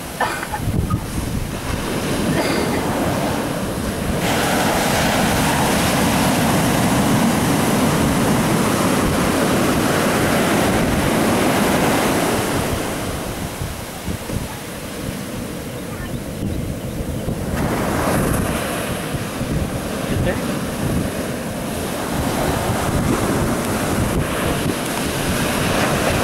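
Ocean surf washing up a sandy beach, a steady wash that swells and eases over several seconds, with a lull about halfway through. Wind rumbles on the microphone underneath.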